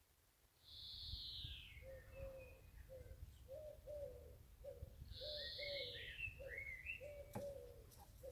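Common swifts screaming: two long, high calls that fall in pitch, about a second in and about five seconds in, with shorter chirps after the second. Beneath them a low note repeats about twice a second, like a dove cooing.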